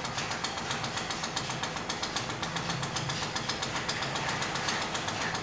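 An engine running steadily with a rapid, even knocking beat.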